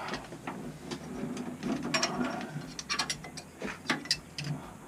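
Irregular metallic clicks and clinks of hand tools and fittings being worked on inside a combi boiler.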